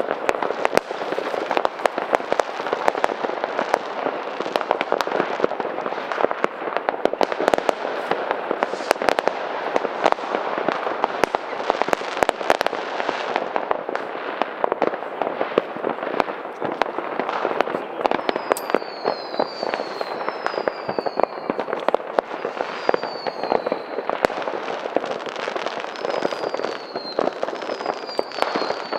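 Many consumer fireworks and firecrackers going off at once: a dense, continuous crackle of bangs and pops. From about two-thirds of the way in, short whistles falling in pitch repeat every second or two.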